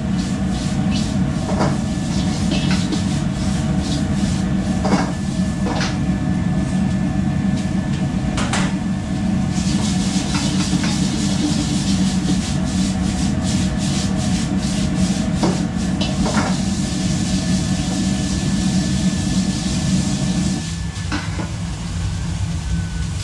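Stir-frying in a wok over a high-flame restaurant wok burner: the burner and extractor hood run with a steady roar while the metal ladle scrapes and clanks against the wok again and again. A louder hiss joins about ten seconds in, and the burner's roar drops shortly before the end as the wok comes off the flame.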